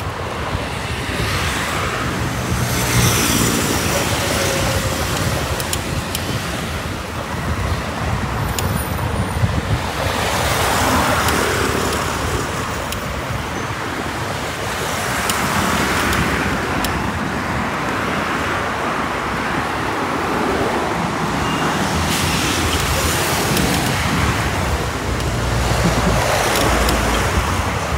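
Road traffic on a busy multi-lane avenue: a steady rush of passing cars and other vehicles, the tyre and engine noise swelling and fading every few seconds as vehicles go by.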